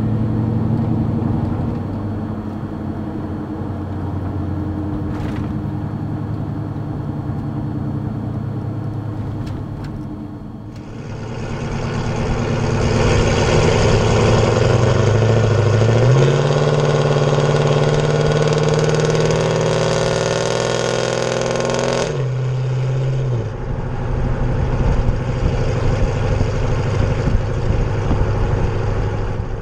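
2014 Chevrolet Silverado's 5.3-litre V8 running through Stainless Works long-tube headers, an off-road Y-pipe and a Corsa Sport cat-back exhaust. First a steady cruising engine note heard from inside the cab; about a third of the way in it switches to close by the exhaust outside, much louder, rising as the truck accelerates, holding steady, then dropping back suddenly about three quarters of the way through.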